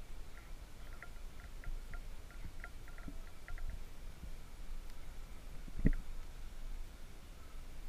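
Low rumbling wind noise on the microphone, with quick short high chirps of a bird over the first few seconds and one sharp thump about six seconds in.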